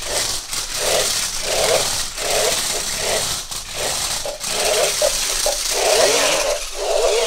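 Electric drive motors of a hand-gesture-controlled stunt RC car whirring in short repeated bursts, about two a second, as the car darts back and forth.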